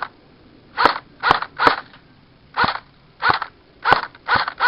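An electric airsoft rifle (AEG) firing single shots one after another, about eight in quick but uneven succession, each a short sharp crack from the gearbox cycling.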